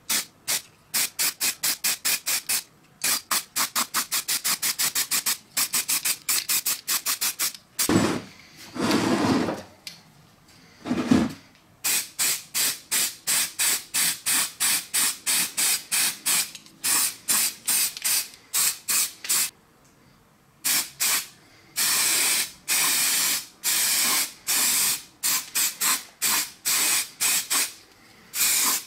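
Aerosol spray paint can sprayed in rapid short bursts, about three or four a second, with a few longer sprays later on. A break around eight to eleven seconds in holds a duller rustle and a single loud knock.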